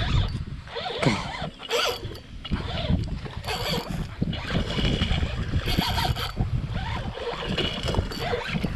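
Wind buffeting the microphone in an uneven low rumble, with scattered rustles and knocks.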